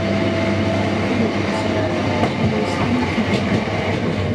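Electric passenger train running, heard from inside the carriage: a steady rumble and hum with a whine that drifts slightly in pitch, and a few sharp clicks from the wheels over the rail joints.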